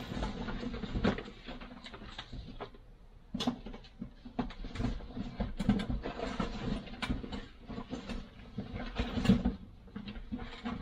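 Irregular rustling and rubbing with many light clicks and knocks: things being handled and moved about.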